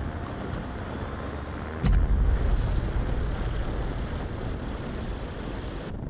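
Engine and rushing wind of an open microlight trike rolling on a dirt airstrip, a steady roar. A sudden loud thump about two seconds in, after which the low rumble stays louder.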